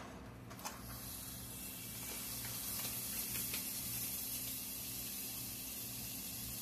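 Cushaw-squash pancake batter sizzling in a hot pan, a faint steady hiss that comes up about a second in and slowly grows, with a few light ticks.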